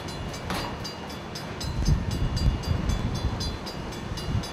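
Railroad crossing signal's bell ringing steadily, about four dings a second, over a low rumble.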